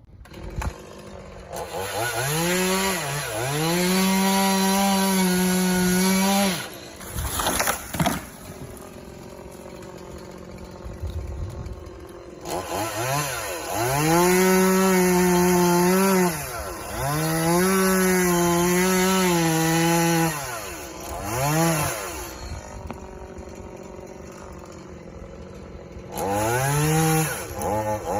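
Chainsaw revving up to full speed and holding it for a few seconds at a time during cuts, then dropping back to idle between them, several times over. There is a brief sharp noise about seven seconds in.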